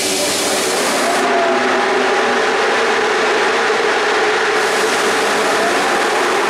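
CFR class 40 (060-EA) electric locomotive with its machinery running: a loud, steady rushing hum with a faint whine that wavers in pitch. A high hiss eases off about a second in and comes back about five seconds in.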